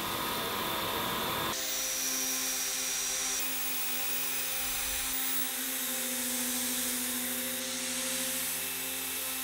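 Sanding on a wood-and-resin turning: a lathe spinning the piece against hand-held sandpaper. About a second and a half in this gives way to the steady whine of a power drill running a small sanding disc over the wood and resin, with a rough hiss of abrasion.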